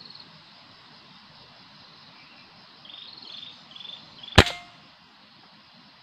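A bird calls with a short run of repeated notes, then a scoped rifle fires a single sharp shot about four and a half seconds in, with a brief ringing after it. Insects buzz steadily underneath.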